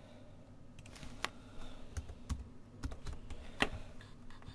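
Computer keyboard being typed on: a handful of separate keystrokes at an uneven pace, typing a short search word.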